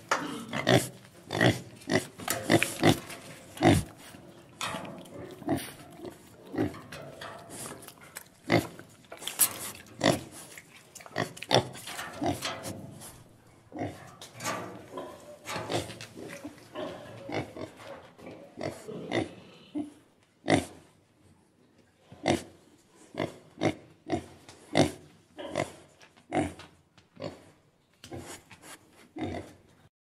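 Domestic pig grunting over and over, short grunts in quick succession. The grunts are packed close together at first and come further apart, with short pauses between them, in the last third.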